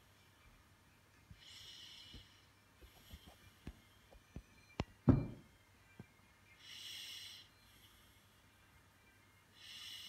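Faint breathing close to the microphone, three short breaths spaced a few seconds apart. Between them comes a run of small clicks and knocks, ending in a louder thump about five seconds in.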